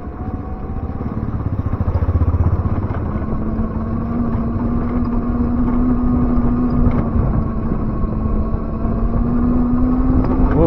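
Ion Mobility M1S electric scooter climbing a hill with a rider and passenger after a standing start: rumbling wind and tyre noise on the road, with a steady electric motor whine from about three seconds in.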